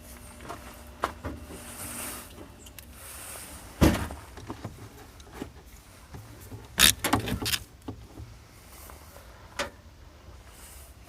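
Hand work at a car's battery: a series of sharp clicks and knocks. The loudest comes about four seconds in, a quick cluster follows around seven seconds, and a last one comes near the end.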